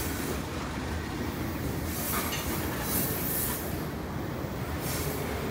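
Freight train cars rolling past on steel wheels: a steady rumble from the wheels on the rails, with a few brief high-pitched hissing swells.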